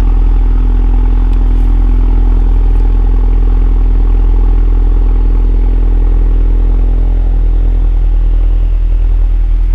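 Ford Focus RS's 2.3-litre turbocharged four-cylinder idling steadily through its stock exhaust just after a cold start, a low, even note.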